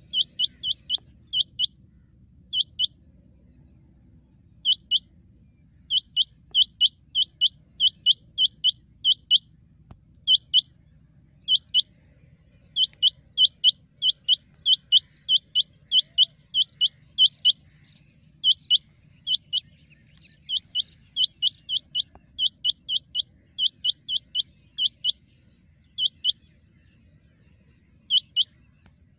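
Rain quail calls: short, sharp high notes repeated several times a second in runs, broken by brief pauses.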